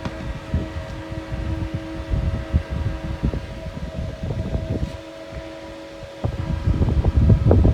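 Steady machine hum, like a fan, under irregular low rumbling buffets on the microphone that grow strongest near the end.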